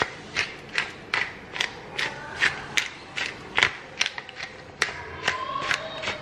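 Hand pepper mill being twisted to grind black pepper, its mechanism clicking in a steady rhythm of about two to three clicks a second.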